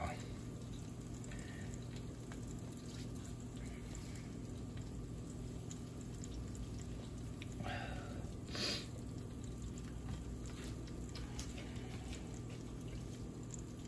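Breaded cube steaks deep-frying in a pot of hot oil, bubbling and crackling steadily. A brief louder noise comes about eight seconds in.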